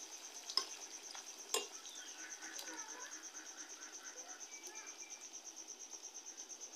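Steel ladle stirring pork curry in a steel kadai over a wood fire: two sharp clinks of the ladle against the pan, about half a second and a second and a half in, over a soft sizzle from the pan. A cricket trills steadily in a fast, even pulse.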